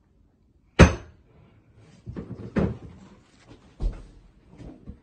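Knocks and thumps: one sharp, loud knock about a second in, then several softer thumps.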